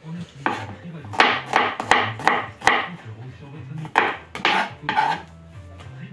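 Chef's knife slicing garlic cloves on a plastic cutting board: a run of sharp chops, a short pause about three seconds in, then a few more.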